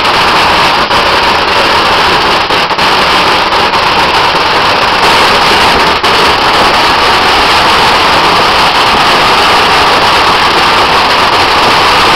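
A dry Christmas tree burning in tall flames: the fire makes a loud, steady rushing noise that holds even throughout.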